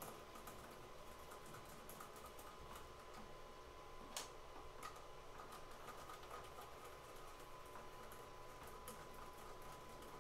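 Faint, scattered small clicks and ticks of a screwdriver working on the plastic rotor head of a 3D-printed siren model, with one sharper click about four seconds in.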